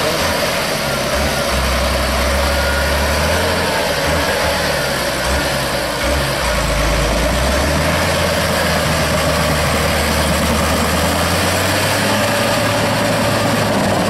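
Tractor diesel engine running steadily under load, its low note wavering as the half-tracked tractor drives through deep mud.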